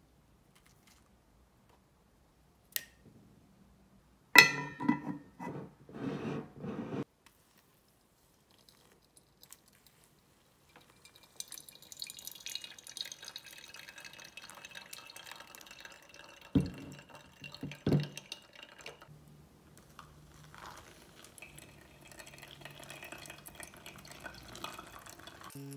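Making pour-over coffee: a brief glassy clatter as the scoop and glass jar are handled, then hot water poured from a kettle onto coffee grounds in a paper filter, a steady hiss with two knocks, followed by faint dripping through the glass dripper.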